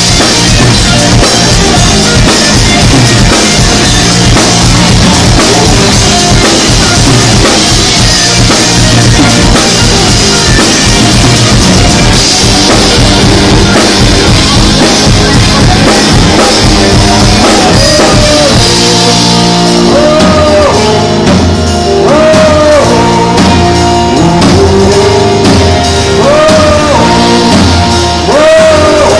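Live rock band playing loudly on stage: electric guitars, bass and drum kit through a PA, recorded from the audience. About twenty seconds in, the dense full-band sound thins to a repeating melodic figure with bent notes over the bass and drums.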